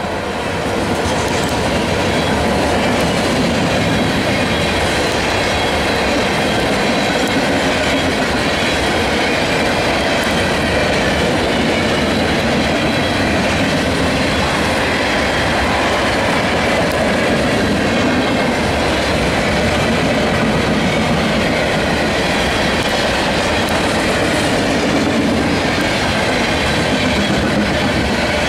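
Canadian National mixed freight train rolling steadily past: a loud, continuous rumble and clatter of covered hopper cars' wheels running over the rails.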